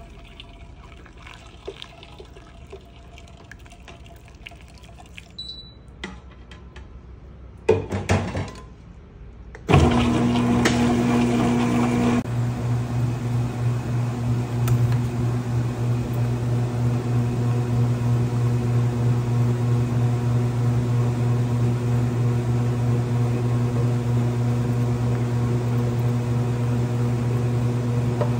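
Gelato batch freezer starting up about ten seconds in and then running steadily with a low, even hum as it churns the mix. Before it starts there are only small clicks and a brief clatter.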